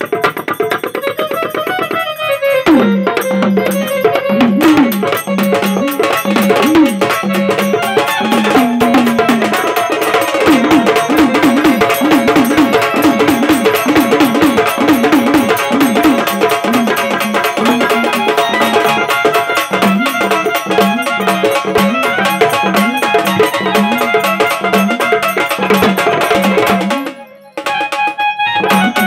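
Sambhal drum solo: fast, dense stick strokes on the Maharashtrian double drum, with a second drum and a melodic line over a steady held note. The music breaks off for a moment near the end.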